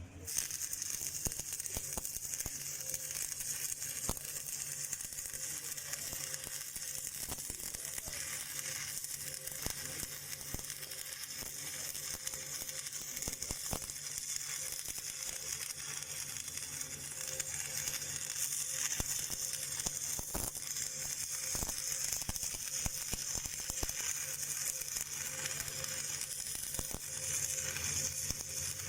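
Stick (shielded metal arc) welding arc, struck right at the start and then burning steadily with a continuous crackle and sizzle.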